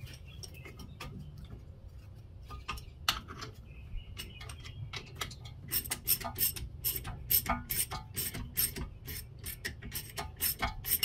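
Ratchet clicking as a front brake caliper piston is pushed back into its bore with a piston compressor. The clicks are sharp and sparse at first, then come steadily at about two or three a second from about halfway.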